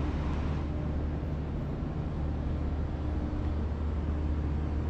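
Steady low rumble of a large indoor hall's room noise, the drone of its air handling, with no distinct events.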